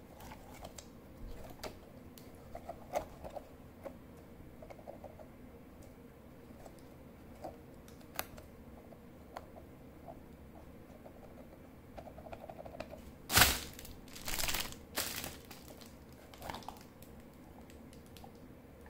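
Handling noise from a soft TPR rubber dinosaur hand puppet being squeezed and worked by hand: scattered small clicks and soft rubbing. A few louder rustling bursts come about two-thirds of the way through, the first of them the loudest.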